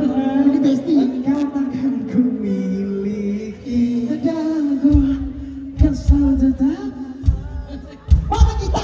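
Live band music with a sung melody carried by voice; heavy drum and bass beats come in about five seconds in.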